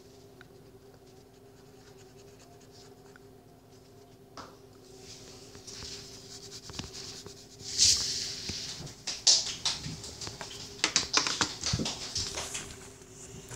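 Felt-tip marker scratching faintly as it colours on paper. From about five seconds in this gives way to louder rustling, rubbing and clicks of hands handling the paper close to the microphone, over a steady low hum.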